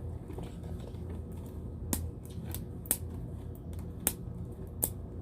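A few sharp, separate plastic clicks and light rustles as an LOL Surprise toy ball's plastic packaging is handled and opened.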